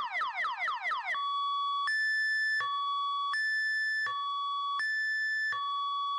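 Electronic car alarm siren sounding its stock, unmodified tone. About a second of fast repeated falling chirps switches to a two-tone hi-lo wail, alternating between a lower and a higher pitch about every three quarters of a second.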